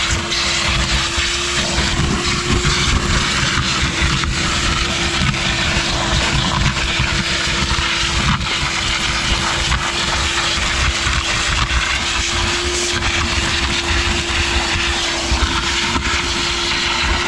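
Vacuum cleaner running steadily through a small nozzle, a constant hum over the rush of air as it sucks debris.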